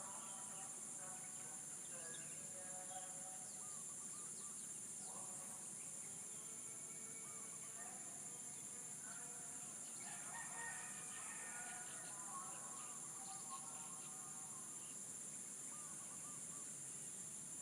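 Roosters crowing at a distance, with long pitched crows near the start, about five seconds in, and most strongly around ten to twelve seconds in, over a steady high-pitched insect drone and scattered small bird chirps.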